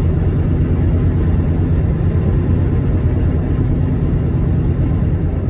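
Semi-truck's diesel engine and road noise droning steadily inside the cab while driving at speed.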